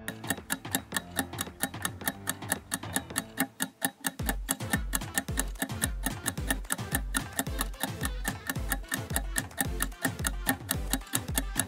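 Countdown-timer music: a fast, steady clock-like ticking, about four or five ticks a second, joined about four seconds in by a deep bass beat.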